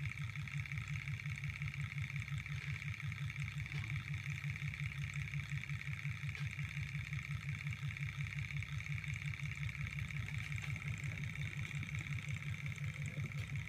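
Model Stirling hot-air engine running steadily, its mechanism beating out a fast, even rhythm, with a steady high whine over it.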